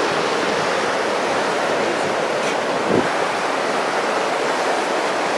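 Steady rush of surf washing onto a beach.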